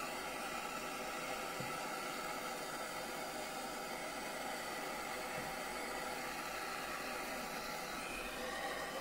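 Steady hiss of a handheld gas torch's flame burning.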